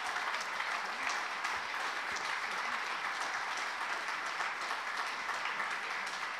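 Audience applauding, a dense steady clapping from a large crowd in a hall.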